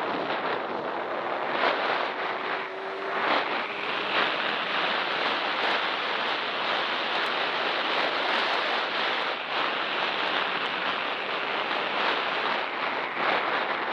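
Heavy wind rushing over the microphone as a Derbi Extreme 50cc dirt bike is ridden, with the engine's note only faintly showing through.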